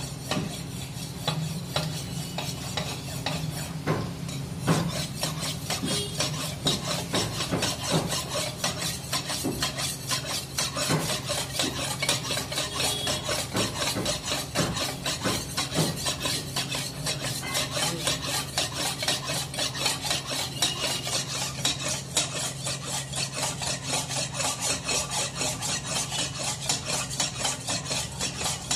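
Meat cleaver being sharpened on a large wet sharpening stone: steel blade scraping across the stone in quick, even back-and-forth strokes.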